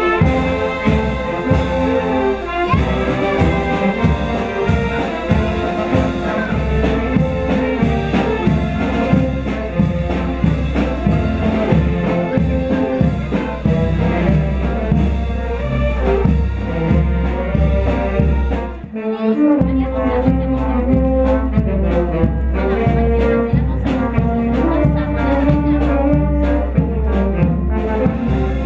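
Live band music led by brass instruments over a steady beat. The music dips briefly about nineteen seconds in, then carries on.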